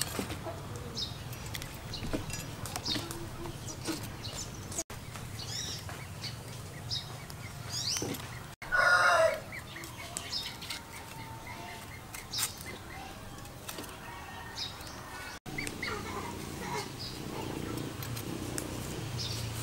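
Farmyard chickens clucking, with small birds chirping high and often, and one loud chicken call lasting under a second about nine seconds in.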